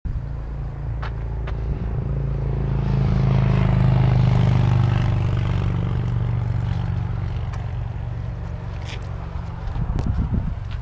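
Engine of a slowly driven vehicle running, a low steady drone that swells about three seconds in and then eases, with a few faint clicks.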